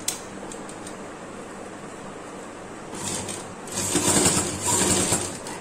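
Domestic sewing machine stitching through layered cotton fabric in three short runs, starting about three seconds in after a quiet stretch that opens with a single click.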